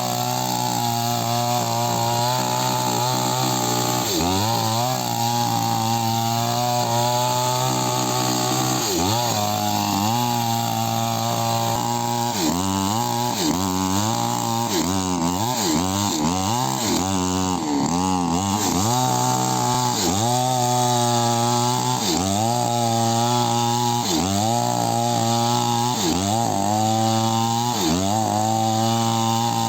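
Chainsaw cutting into candlenut tree wood. Its engine pitch sags under load and picks back up again and again, about every one to two seconds.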